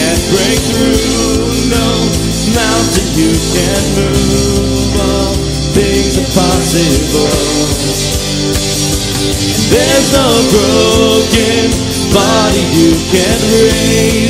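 Live worship band playing a song: drum kit, electric and acoustic guitars, keyboard and bass, with voices singing over it at times.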